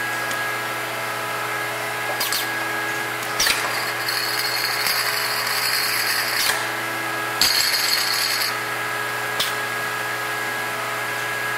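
Two-head gravity bottle filler and conveyor running: a steady machine hum with several held tones, broken by clicks and short sharp hissing bursts about two, three and a half, seven and a half and nine seconds in. Two longer high hisses run from about four to six and a half seconds and from seven and a half to eight and a half seconds, as the filler cycles between fills.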